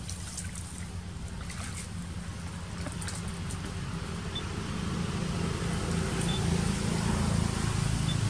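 Water splashing and lapping in a steel basin as young macaques climb and play in it, with short splashes in the first few seconds. Under it runs a steady low engine rumble that grows louder about halfway through.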